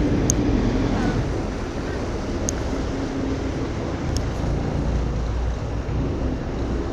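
A ferry's engine running with a steady, noisy low rumble, mixed with water wash and wind buffeting the microphone.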